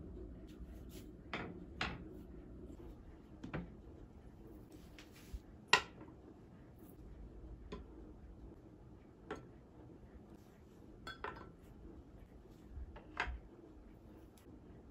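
Plastic skincare bottles and jars set down one at a time on a wooden shelf and tray: a scattering of light knocks and clicks, the sharpest about six seconds in.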